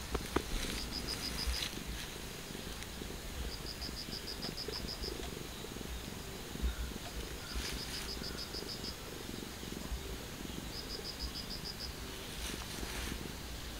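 Calico cat purring, a steady low rumble, with a high, rapidly pulsed insect chirp sounding in short bursts about every three seconds.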